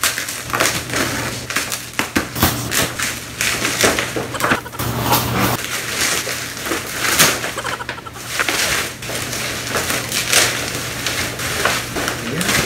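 Black bubble-wrap and plastic packaging being cut and pulled off a long parcel: a continuous run of crinkling, rustling and crackling plastic.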